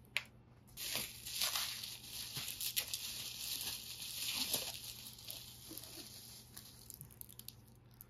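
Bubble wrap rustling and crinkling as hands dig through it in a cardboard box, after a sharp click right at the start. The rustling is densest for the first few seconds, then thins to light crackles.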